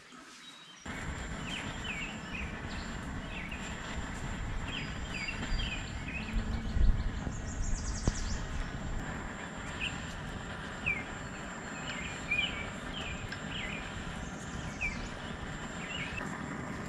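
Long-wand propane torch burning steadily with an even rushing noise as its flame chars the surface of a wooden stick, starting about a second in. Birds chirp briefly and repeatedly over it.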